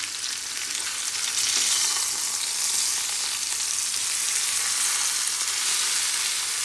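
Flour-dredged cod steaks sizzling in hot oil in a frying pan as the pieces are turned over with a spatula. The steady sizzle swells a little about a second and a half in.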